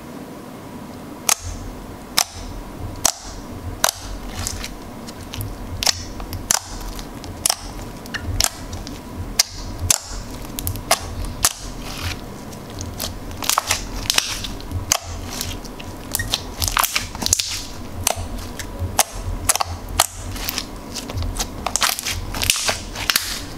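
Black glitter slime pressed and folded by hand, giving sharp clicking pops, about one a second at first and coming thicker and faster in the second half.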